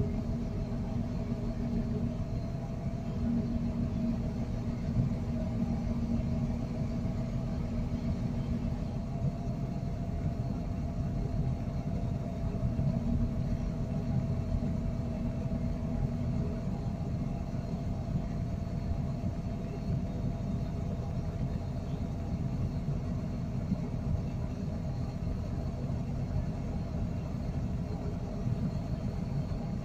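Crane's diesel engine running steadily during a pile cage lift: a constant low rumble, with a hum that sounds in stretches during the first half and then drops away.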